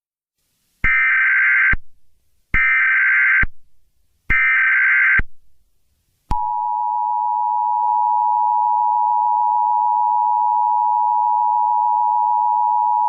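Mock Emergency Alert System tones: three short bursts of warbling SAME header data, then the steady two-tone EAS attention signal, which starts about six seconds in and holds unbroken.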